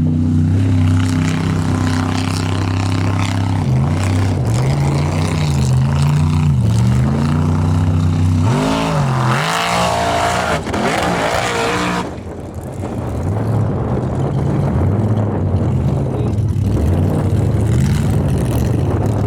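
Formula offroad race truck engine at high revs, the pitch rising and falling as the throttle is worked. About eight seconds in there is a harsher surge of noise lasting a few seconds, then a brief dip before it settles into steady running again.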